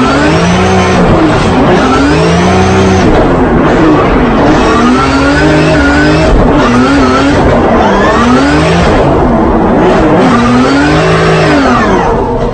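Drift car engine revving up and falling back over and over, about every one and a half to two seconds, with tyre squeal, as in a car being drifted.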